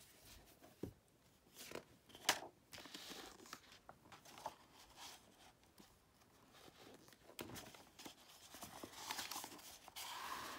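Faint handling of a hardcover picture book: the cover opening and pages being turned by hand, with scattered light paper rustles and taps and a longer rustle near the end.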